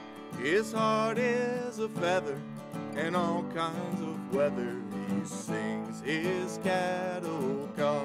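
Acoustic guitar strummed in a slow country accompaniment, under a wordless high voice that leaps and wavers up and down with vibrato: yodeling.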